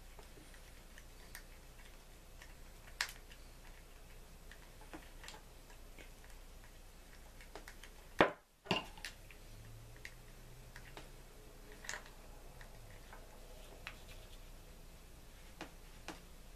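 Scattered small clicks and ticks of a screwdriver and metal parts as the handle screw is driven back into a Johnson Sabra 4 spincast reel, with one sharper click about eight seconds in.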